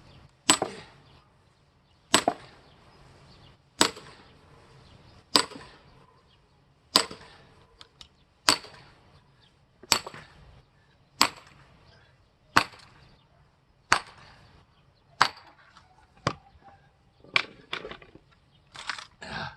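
Axe blows splitting a large log for firewood: a sharp woody crack about every second and a half, repeated some fourteen times, with a quicker pair of strikes near the end.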